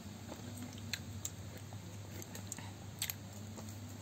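Steady low hum with a few faint, short clicks: one about a second in, another just after, and a pair near three seconds.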